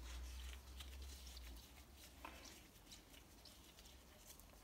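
Near silence, with faint soft handling sounds: a gloved hand scraping spice paste out of a metal tin, one faint tick about two seconds in. A low hum fades out about a second and a half in.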